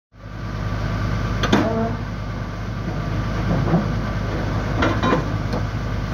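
Diesel engine of an old Hitachi UH09 hydraulic excavator idling steadily, with a few sharp metallic clanks over it, the loudest about one and a half seconds in.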